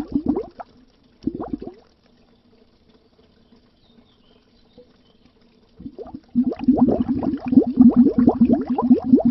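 Bubbles streaming under water in a rapid, dense bubbling. It stops about half a second in, comes back in a short burst, goes almost silent for about four seconds, then starts again about six seconds in.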